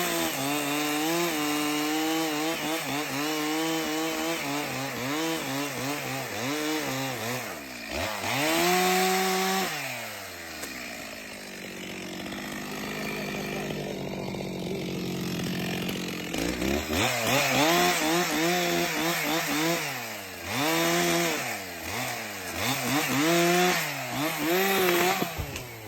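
Gasoline chainsaw cutting through a heavy log, its engine speed wavering up and down under load. It drops back toward idle about ten seconds in, revs and cuts again some six seconds later, and drops off near the end. This is the second saw making the cut that frees a pinched chainsaw bar by releasing the log's tension.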